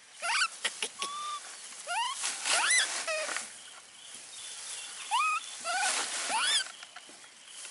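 Baby monkeys' high, squeaky cries: short calls that rise sharply in pitch, coming in clusters with brief quiet gaps between.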